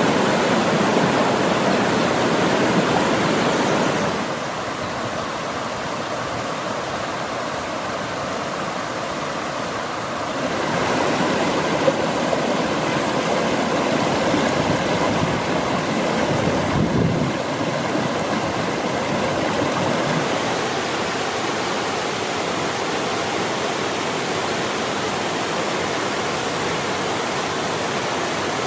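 Mountain stream water rushing in a steady wash. The sound drops quieter about four seconds in and grows louder again about ten seconds in.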